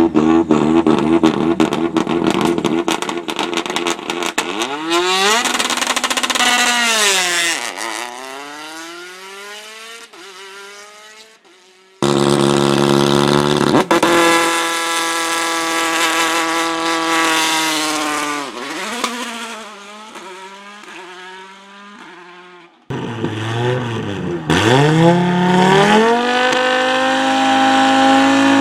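Three rally car starts cut one after another. Each time the engine is held at high revs, then the car launches and passes close by, its pitch dropping as it goes, and it accelerates away through the gears with rising revs. Sharp crackles and pops run over the held revs of the first car.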